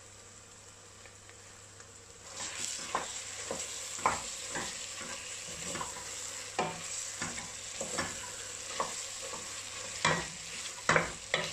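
Minced mutton starts sizzling about two seconds in as it drops into a hot stainless steel pot of masala. A wooden spoon stirs it, scraping and knocking against the sides of the pot again and again.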